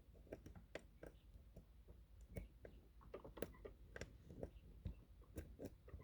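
Faint, irregular clicking of a lock pick working the pins of a pin-tumbler challenge lock held under tension, with the core not yet turning.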